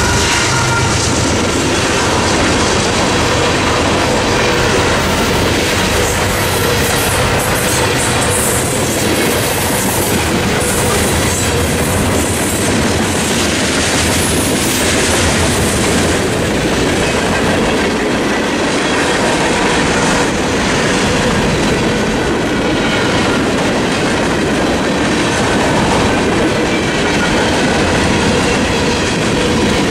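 Freight cars of a long mixed freight train rolling by at a level crossing: steady wheel-on-rail noise with clickety-clack over the rail joints and some thin wheel squeal. The low rumble of the mid-train diesel locomotives trails off in the first couple of seconds.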